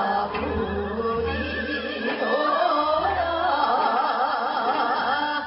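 Women singing Seodo sori, Korean northwestern folk song, with a wide shaking vibrato, over a traditional Korean accompaniment that includes a haegeum fiddle and a bamboo flute.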